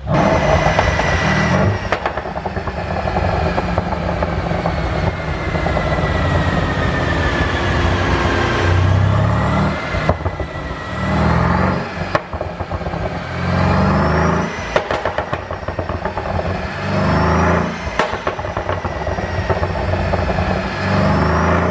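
Mercedes-Benz SL63 AMG twin-turbo V8 with a pop-and-crackle exhaust tune, revving up and falling back again and again, with several sharp exhaust pops on the overrun.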